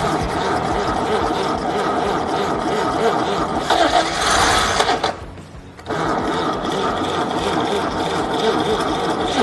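Freshly rebuilt Chevrolet stovebolt inline-six engine running on its first start for camshaft break-in, a steady busy mechanical clatter. The sound drops away for about a second around five seconds in, then carries on as before.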